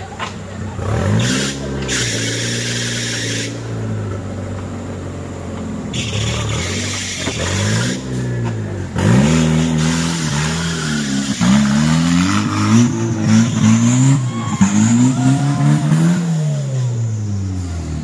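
A modified off-road 4x4's engine being revved hard over and over, its pitch rising and falling, the revs coming quicker in the second half, over a steady hiss, as the truck fights its way through deep mud.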